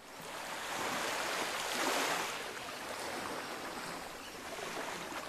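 Waves washing in: a steady rushing hiss that starts suddenly and swells to its loudest about two seconds in.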